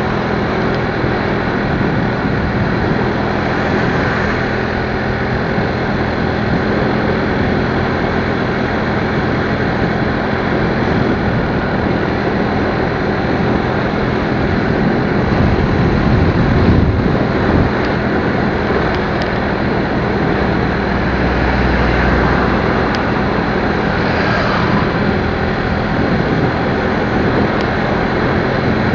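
Motorcycle running steadily on the road, its engine's even hum under heavy wind and road noise on the microphone.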